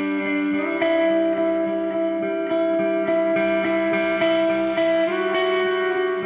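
Background music: sustained chords over a steady rhythmic pulse, changing chord about half a second in and again near the end.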